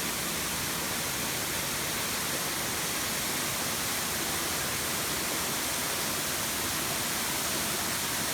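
Waterfall close by, a steady, even rush of falling water and spray with no breaks.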